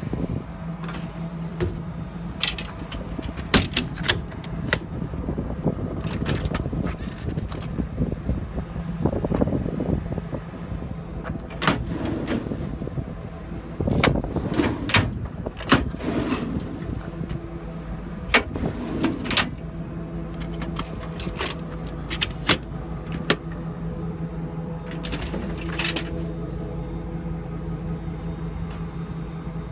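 An engine running at a steady idle, with scattered sharp clicks and knocks over it.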